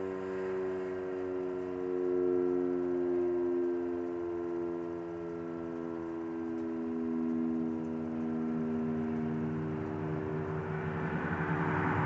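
H.O.R. Siro-Drone fire siren sounding a low chord of several tones that waver slightly in pitch. A rushing noise builds under it near the end.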